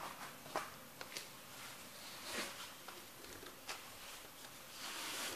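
Boots shifting on crushed bread-stick crumbs on a paper mat: scattered small crunches and crackles, with a longer scraping rustle near the end as a boot is lifted off.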